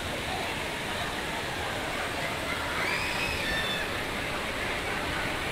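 Steady rush of a waterfall, with faint voices about halfway through.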